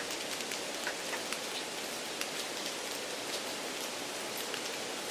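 Steady rain sound: an even hiss with scattered small ticks of drops. It is background noise added to imitate a noisy test room.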